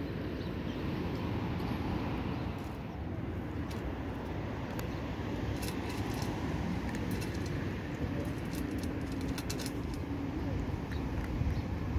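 A cat crunching dry kibble from a metal bowl, heard as scattered faint clicks and clinks over a steady low rumble.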